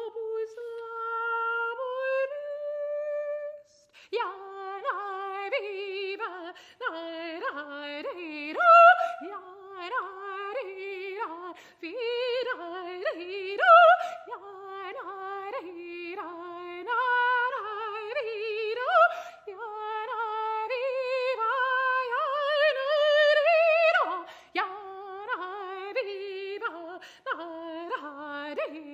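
Unaccompanied soprano voice singing contemporary art music: a held note that steps upward, a brief pause about four seconds in, then a long run of short notes with wide, rapid leaps and a wavering vibrato.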